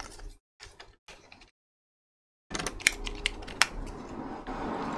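Plastic parts of a small solar lantern module being pressed and turned together by hand: sharp clicks and scraping of plastic on plastic. There is a silent gap of about a second in the middle.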